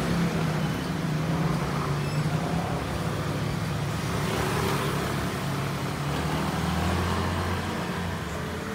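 Street traffic: motor vehicle engines running with a steady low hum, over general road noise.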